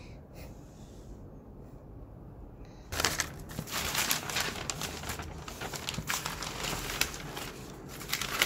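Sheets of pattern paper rustling and crinkling as they are handled, starting suddenly about three seconds in and continuing as a dense, crackly rustle.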